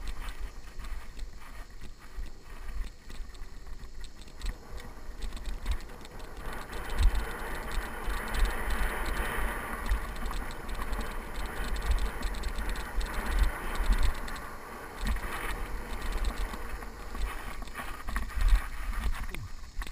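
Mountain bike ridden along a dry dirt trail, heard from the rider's camera: tyre noise on loose dirt and gravel, louder and hissier through the middle, with frequent low thumps and rattles as the bike goes over bumps.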